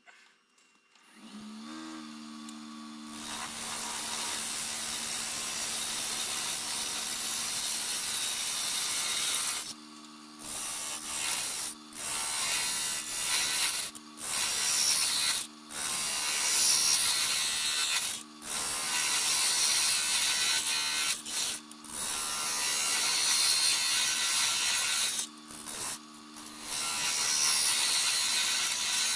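Wood lathe motor starting and spinning up to a steady hum, then a turning tool cutting the spinning black walnut blank in long hissing passes. The passes are broken by about ten short gaps where the tool comes off the wood and only the motor hum is left.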